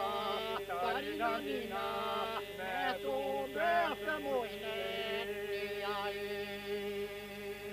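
Men's group singing a southern Albanian polyphonic folk song: ornamented lead voices glide over a steady drone held by the group.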